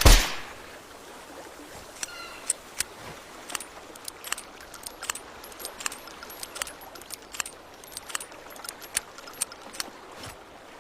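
Light metallic clicks and rattles of a Nagant revolver's mechanism being handled just after firing, with one ringing metallic clink about two seconds in.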